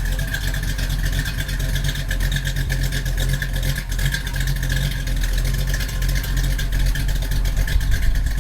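Truck engine and exhaust running steadily at idle, a low even rumble with no revving.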